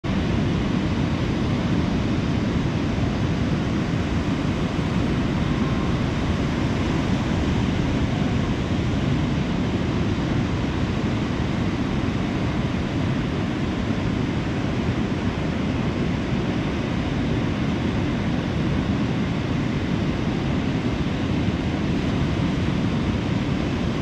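Ocean surf breaking and washing onto a sandy beach: a steady, even rush of waves, heaviest low down, with no single crash standing out.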